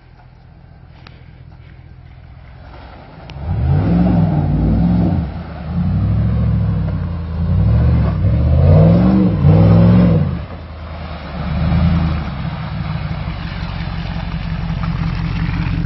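Jeep Grand Cherokee's 5.7-litre Hemi V8 through a loud exhaust, coming in about three seconds in and revving up and down in several surges as it drives through mud, then running at a steadier drone near the end.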